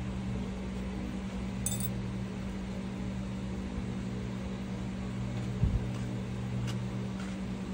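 Steady low mechanical hum, with a few small sharp clicks of steel cuticle nippers working at the edge of a toenail, one about two seconds in and another near the end, and a dull thump just before that.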